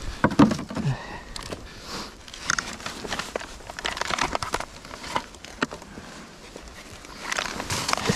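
Irregular rustling, crinkling and crunching of ice-fishing gear handled on snow, with a foam bait box and its lid moved about.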